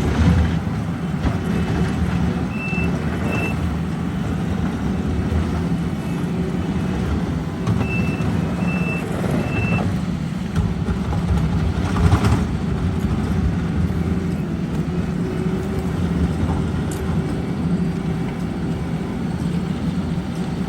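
Heavy paving equipment running with a steady engine drone, and a backup alarm beeping as a machine reverses: two beeps about two and a half seconds in and three more about eight seconds in. A brief louder burst of noise comes about twelve seconds in.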